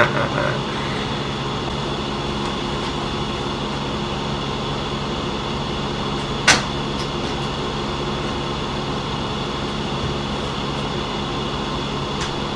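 A steady hum made of several even tones over a noisy haze, with one sharp click about six and a half seconds in.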